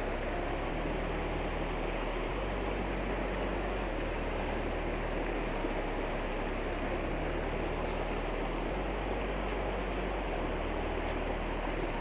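Creek water rushing over rocks in a small riffle: a steady, even hiss. A faint high ticking repeats about two or three times a second.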